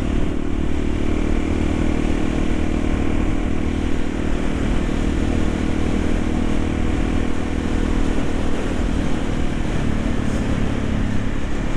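Yamaha XT350's single-cylinder four-stroke engine running steadily under way, heard from the rider's position, with its pitch dipping briefly about ten seconds in.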